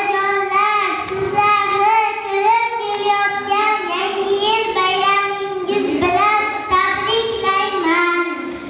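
A child singing a melody, holding long notes.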